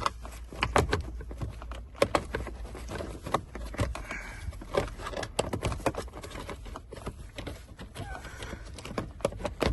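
Irregular clicks and knocks of hands working on car interior parts and trim, a few sharp taps a second over a low hum.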